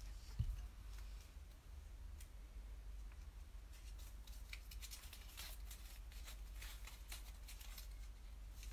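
Faint handling noise: a soft low bump about half a second in, then from about four seconds a quick run of dry rustles and clicks.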